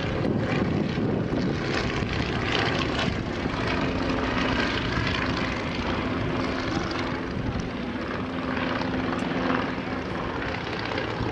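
Piston engines of propeller-driven First World War replica biplanes and a Fokker Dr.1 triplane droning steadily as they fly overhead, with a steady engine hum standing out in the middle.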